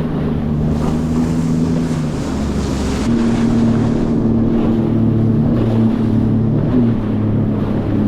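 Sea-Doo jet ski engine running hard across ocean swells, its note shifting with the throttle and stepping up about three seconds in, with wind buffeting the microphone and water rushing past.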